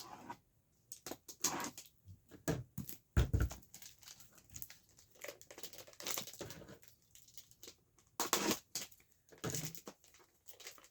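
Thick plastic shrink wrap being torn and crinkled off a sealed box set, in irregular rips and rustles with short pauses between them.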